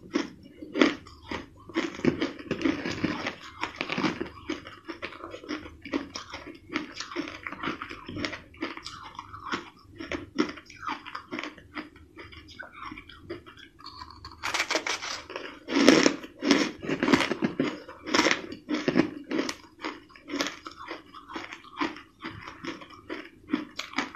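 Crushed ice being bitten and chewed close to the microphone: rapid, crisp crunching that goes on without pause, with a louder, denser run of crunches about two-thirds of the way through.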